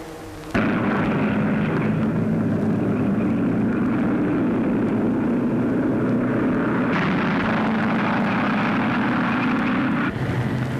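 Race car engines running flat out: a steady, loud drone that cuts in sharply about half a second in and drops away shortly before the end.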